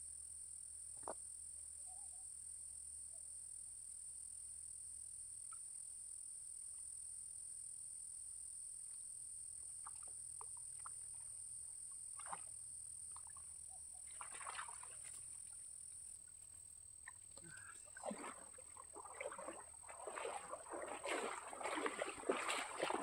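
Water splashing and sloshing in irregular bursts that build up and grow louder over the last few seconds, as a cast net holding tilapia is hauled up out of a lake. Before that there are only a few faint scattered splashes and clicks over a steady high hiss.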